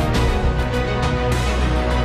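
Background music: sustained notes over a heavy low bass, with drum hits every half second or so.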